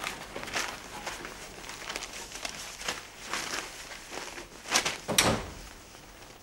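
Newspaper rustling as it is picked up and shaken open, in scattered crackles with two louder rustles about five seconds in, along with faint movement at a room door.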